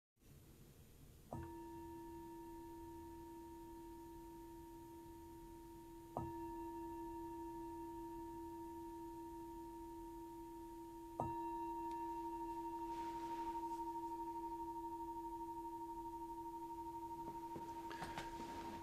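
Meditation bell struck three times about five seconds apart, each strike ringing on in a steady low hum with a clearer ring above it that carries through to the next strike. The bell marks the close of a sitting meditation.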